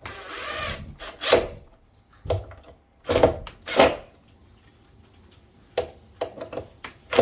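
Screw being driven into the wooden door with a power drill-driver: one longer run at the start, then four short bursts as it seats, followed by a few sharp clicks near the end.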